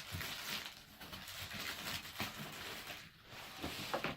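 Light rustling with a few soft clicks and knocks as the plastic parts of a kids' ride-on toy Jeep are handled.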